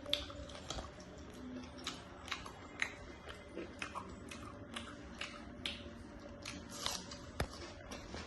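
A person chewing food close to the microphone, with irregular sharp wet clicks and small crunches.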